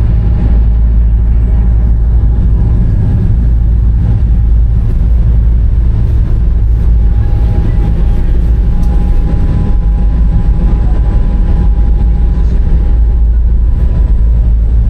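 Fast passenger ferry's engines running under way, heard inside the cabin as a loud, steady low drone with a faint steady tone above it.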